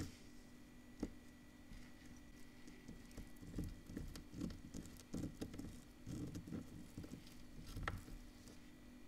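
Hands scrunching and gathering stiff veil netting against a tabletop: faint rustling and soft knocks, with a sharp tap about a second in and another click near the end.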